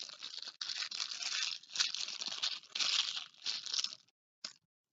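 Crinkling, rustling handling noise as a squishy toy is handled and squeezed close to the microphone. It comes in uneven bursts and stops about four seconds in, with one short rustle just after.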